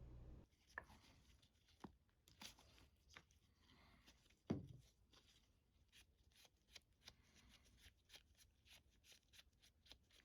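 Faint scattered clicks, taps and rubbing of small metal parts being handled and wiped clean, with one sharper knock about four and a half seconds in.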